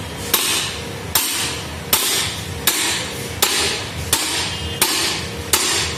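Hammer blows at a steady pace, about eight strikes spaced under a second apart, driving the fifth gear down onto its shaft in a Volkswagen Polo five-speed manual gearbox.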